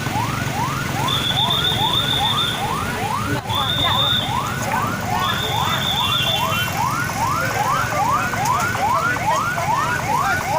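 Emergency-vehicle siren wailing in fast rising sweeps, about three a second, over a low hum of traffic. Three long, steady, high tones sound over it in the first half.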